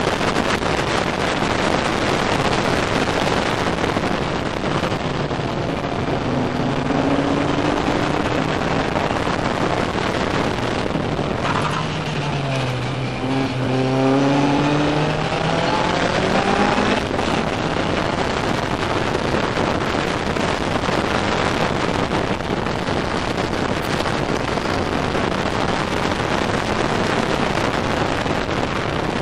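Ginetta race car's engine running hard under racing load, heard from inside the open cockpit with a dense rush of wind and road noise. About twelve seconds in, the engine note drops, then climbs again over the next few seconds as the car accelerates.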